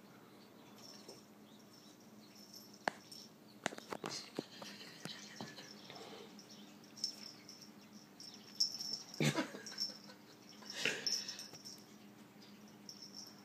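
The metal tag on a kitten's new collar jingling faintly in short spells as she runs and pounces, with a few light clicks and knocks of her movements.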